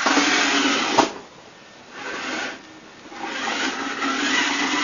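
Toy RC Porsche car's small electric drive motor and gears whirring in three bursts as it drives on a wooden floor, with a steady low hum under the whir. The first burst ends with a sharp click about a second in, a short burst follows, then a longer run near the end.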